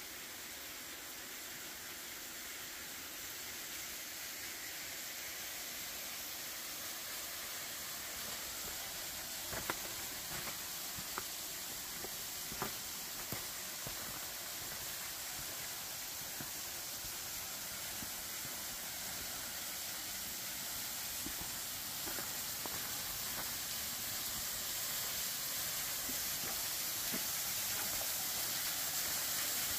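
Rushing creek water, a steady hiss that grows gradually louder. A few sharp clicks sound about a third of the way in.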